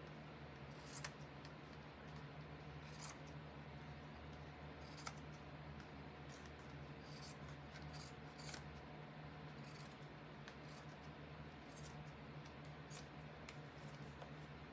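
Scissors snipping through fabric strips: a dozen or so short cuts at uneven intervals, over a steady low hum.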